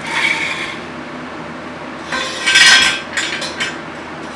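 Clinks and scrapes of hard parts being handled and knocked together in a VW Beetle's engine bay during an engine install. There is a short bout at the start and a longer, louder cluster in the middle, over a steady hum of a fan in the room.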